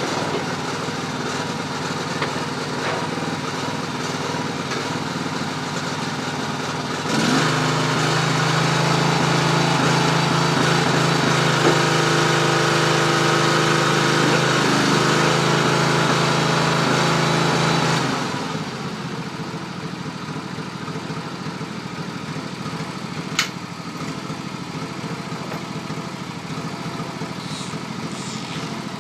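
Mini recycling baler running steadily. For about ten seconds in the middle it grows louder with a strong steady hum as it works through its crushing stroke, then drops back to a quieter run. A single sharp click comes near the end.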